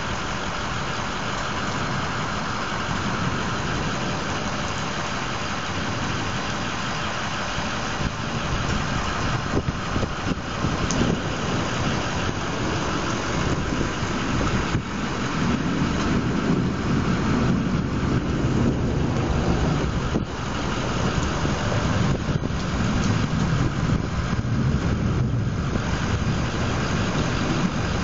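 Steady hiss of rain falling during a summer thunderstorm, with a low, uneven rumble rising under it from about halfway through.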